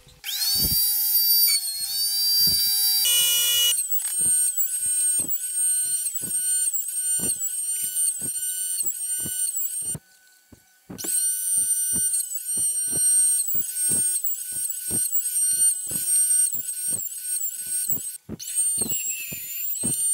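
Wood router on a router table running at high speed, a high-pitched whine that sags briefly again and again as the straight bit cuts each finger-joint slot. It stops about halfway through and starts again, and breaks off once more near the end.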